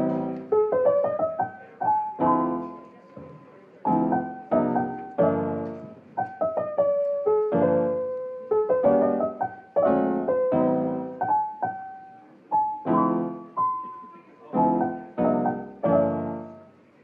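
Background piano music: a gentle melody over chords, each note struck and then fading away.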